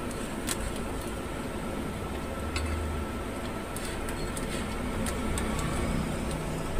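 A flat spatula working an egg paratha roll in a frying pan: a few light clicks and scrapes of the spatula against the pan, over a steady low hiss.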